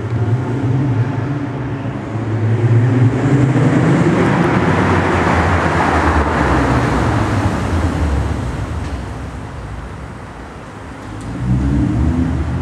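2008 Nissan Altima 3.5 SE's 3.5-litre V6 through a Stillen cat-back exhaust with no resonator, rising to a loud run for several seconds and then falling away, with a second short rev near the end, echoing in a parking garage.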